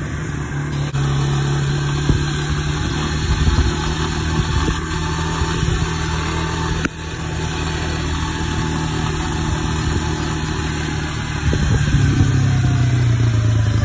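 Honda Fourtrax 300 ATV's single-cylinder engine running steadily, with a short sudden dip about halfway through and getting louder near the end.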